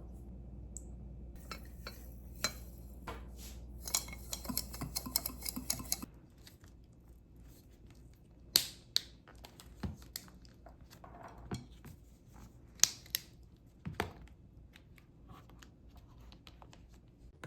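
Small household items being handled and set down: scattered light clicks, taps and clinks. A low hum lies under the first six seconds, then cuts out.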